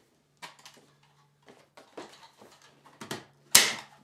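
Aluminium radiant barrier foil crinkling as it is pulled taut across a roof truss, then one sharp staple gun shot about three and a half seconds in, fastening the foil to the rafter.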